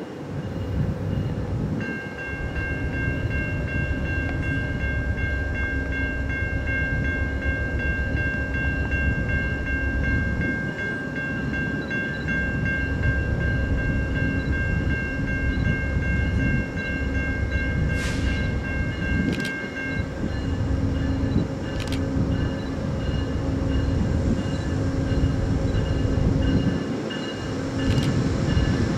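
An Amtrak passenger train led by a GE P42DC diesel locomotive approaches, its engine and wheels making a steady low rumble. A steady high chord of tones sounds over it from about two seconds in and cuts off suddenly about two-thirds of the way through.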